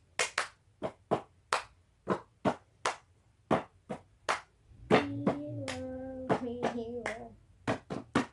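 A run of sharp hand claps, irregular, about two or three a second. A short child's hum of a held note, about two seconds long, sits in the middle.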